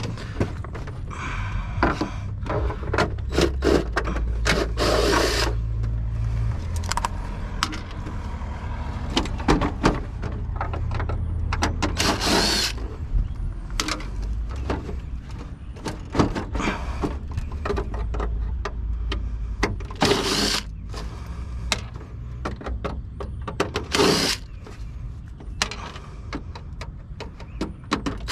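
Scrap being taken apart by hand with tools: many clicks and knocks, and four short loud bursts of scraping or rattling, over a low steady hum.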